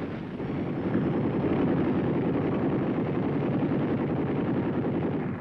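Bell UH-1 Huey helicopter in flight: a steady rapid rotor beat over the engine noise, swelling about a second in and dropping off near the end.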